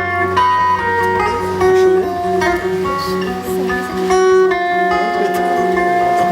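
Instrumental music: a melody of picked notes over a held low note, the instrumental introduction to a Portuguese-language worship song.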